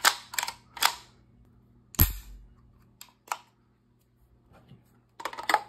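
Sharp metal clacks from a GHK gas blowback airsoft AK's chrome bolt being worked by hand: a few quick clicks, one louder slam with a low thud about two seconds in, then scattered clicks and a short cluster near the end.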